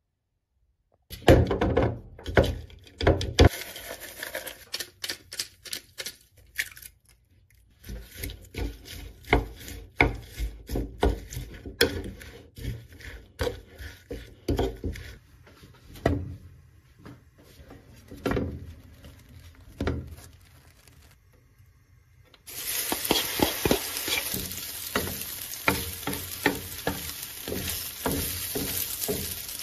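Shredded cabbage batter being stirred in a wooden bowl: a long run of quick clicks and scrapes of the utensil against the bowl, with short pauses. About 22 seconds in, the batter goes into a hot oiled frying pan and sizzles steadily, with a wooden spatula tapping and pressing it.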